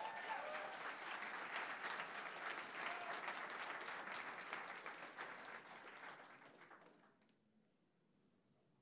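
Audience applauding, thinning out after about five seconds and dying away about seven seconds in.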